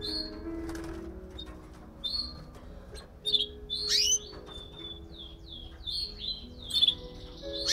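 Timbrado Espanhol canaries chirping in a cage: short rising and falling chirps, with a quick run of them in the middle and near the end, over background music of held chords.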